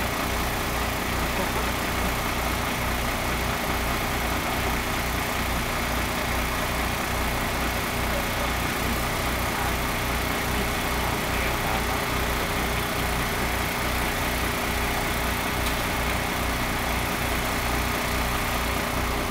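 Fire truck engine idling steadily, an even low throb with a few steady tones above it.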